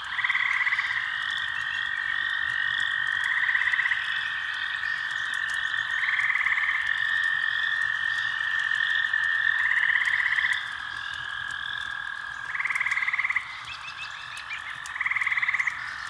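Night-time nature ambience: frogs calling in pulsed trills about a second long, repeating every three seconds or so, over a steady high tone.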